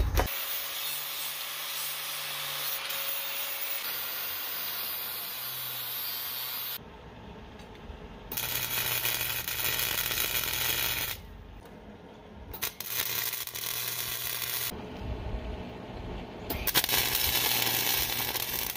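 Flux-core MIG welder arc crackling and hissing as new steel is welded into a rusted trailer frame. It runs in four stretches with short pauses between them, the first about six seconds long and the rest a few seconds each.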